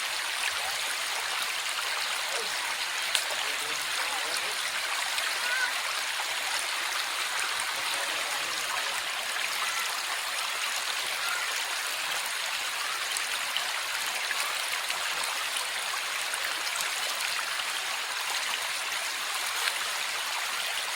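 Small river's water flowing steadily: an even rushing hiss.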